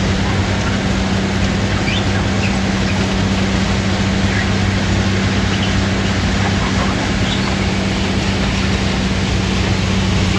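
A rail maintenance-of-way ballast-cleaning machine rolling past: loud, steady diesel drone with a constant low hum, mixed with the rumble of its wheels and machinery on the track.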